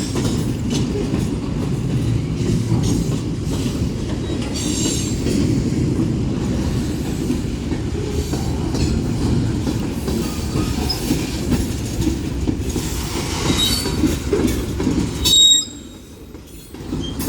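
Union Pacific manifest freight cars rolling past at a grade crossing: a steady rumble of wheels on the rails with clickety-clack over the joints and occasional thin, high wheel squeal. About fifteen seconds in, the sound drops away sharply as the end of the train goes by.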